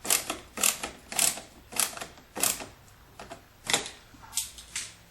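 Star-head (Torx) screw being turned by hand into the plastic door trim. It gives a short, scratchy click with each turn, about every half second, coming less often near the end.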